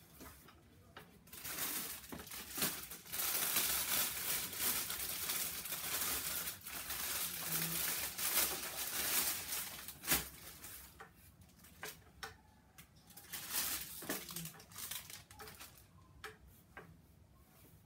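Plastic packaging crinkling and rustling as gift items are handled and unwrapped, in a long stretch with a sharp snap about ten seconds in, then a shorter bout of rustling.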